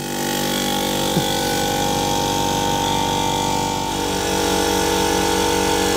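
Portable electric air compressor running steadily with a hum and hiss, just restarted after its tripped cut-out was reset. The sound changes about four seconds in.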